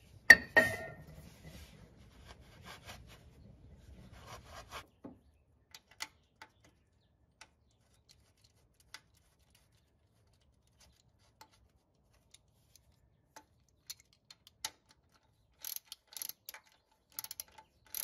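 Small metal clicks and rubbing as a new battery ground cable's terminal lug is handled and seated on the engine-block grounding bolt, with a sharp click just after the start. In the last few seconds a socket ratchet clicks in several short bursts, tightening the ground bolt.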